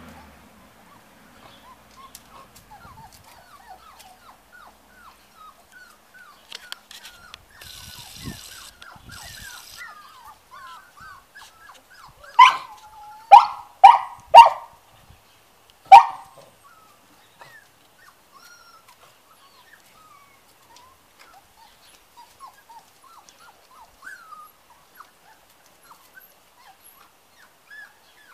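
Puli puppies yipping and whimpering in a run of short, high calls. Five loud dog barks come about halfway through: four in quick succession, then one more a second and a half later.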